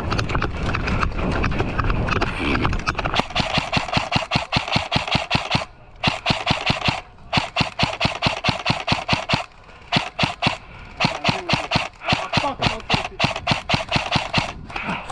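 Footsteps rustling through dry leaves, then from about three seconds in a string of sharp airsoft rifle shots at about four a second, fired in runs with short breaks between them.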